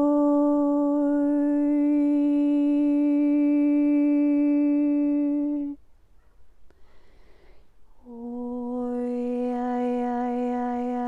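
A woman's voice toning a long, steady held note that breaks off about six seconds in. After a breath she holds a second, slightly lower note.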